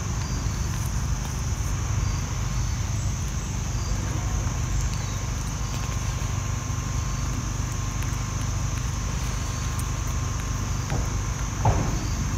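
Steady outdoor background of a low rumble under a continuous high-pitched insect drone, with one brief sharper sound near the end.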